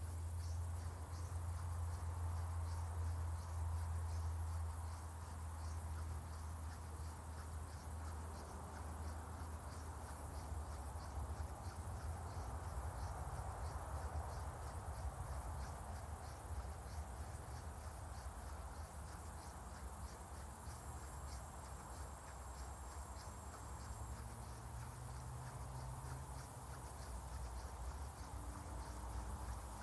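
Crickets chirping steadily in a fast, even rhythm over a high continuous trill, with a low steady rumble underneath.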